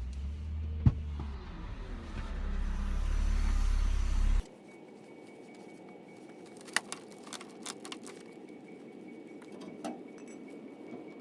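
Low rumble of a motor vehicle, swelling louder, that cuts off suddenly about four seconds in, followed by quieter background with a few sharp clicks.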